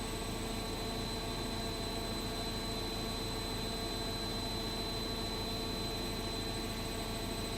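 Washing machine running: a steady mechanical hum with a constant high-pitched whine over it.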